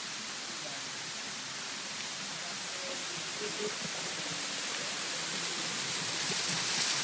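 Steady rush of a small waterfall splashing into a rock pool, growing gradually louder near the end.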